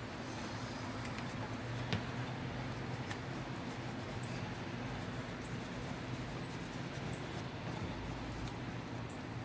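Light scratching and small clicks of a Keihin throttle body being handled and wiped clean by hand, with one sharper tick about two seconds in, over a steady low hum.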